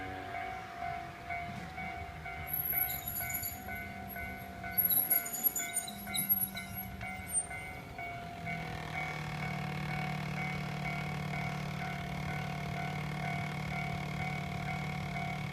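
Japanese level-crossing warning bell ringing in a steady repeating ding throughout. A train passes over the crossing, with high wheel squeal and clatter loudest in the middle. A low steady hum then carries on under the bell.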